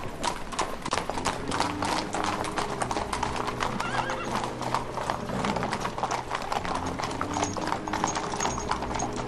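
Several horses' hooves clip-clopping at a walk as riders pass, and a horse whinnies.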